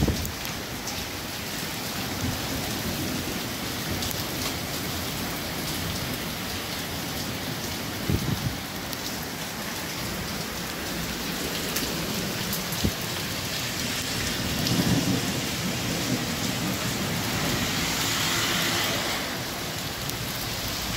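Heavy rain mixed with hailstones pelting onto paving and foliage: a steady hiss broken by a few sharp knocks, with thunder rumbling.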